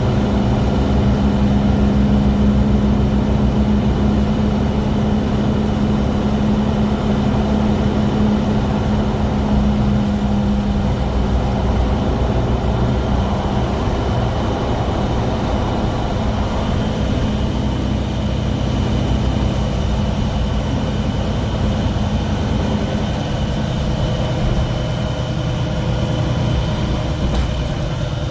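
Mercedes-Benz Citaro G articulated bus running with a steady low rumble and a loud droning hum that fades out about halfway through, over fainter steady high tones: the strange noise this bus makes.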